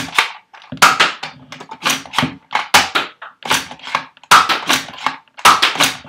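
Nerf N-Strike Elite Spectre Rev-5 dart blaster being primed and fired over and over in quick succession: a rapid series of sharp plastic clacks and pops, about two a second.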